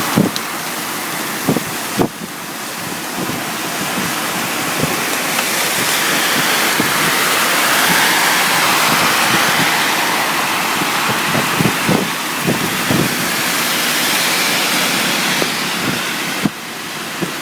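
Heavy rain pouring in a dense, steady rush, with scattered sharp knocks.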